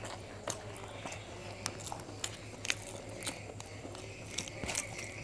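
A person chewing a mouthful of rice and side dishes close to the microphone, with scattered wet mouth clicks and smacks.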